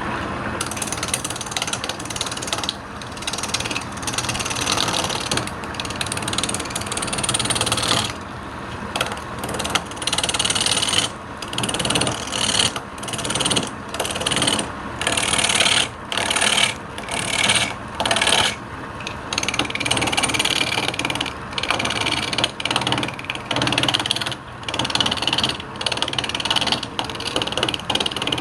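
Wood lathe running while a turning tool cuts into the spinning wood. The cutting noise is steady at first. From about ten seconds in it breaks off and starts again roughly once a second, in short repeated passes.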